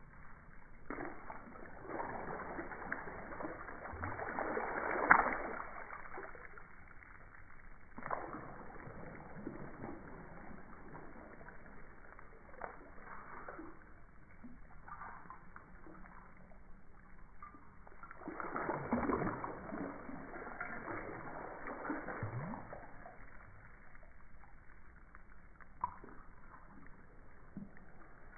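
Water splashing and sloshing in irregular bursts, loudest about five seconds in and again around nineteen seconds, with a few sharp slaps between.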